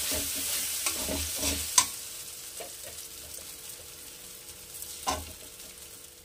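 Ground split-pea (matar dal) paste sizzling in hot mustard oil in a metal kadai, with a metal spatula scraping and knocking against the pan in the first couple of seconds. The sizzle dies down gradually, broken by a sharp metal clink a little under two seconds in and another about five seconds in.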